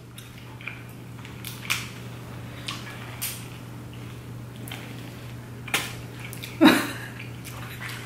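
Close-up eating sounds: snow crab leg shells snapped and cracked by hand, lip smacking and plastic bags crinkling. It comes as a scatter of short sharp cracks and clicks, the loudest about six and a half seconds in.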